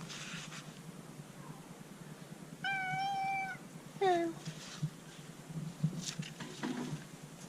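Domestic cat meowing twice: a drawn-out meow about three seconds in, then a short one that falls in pitch a second later.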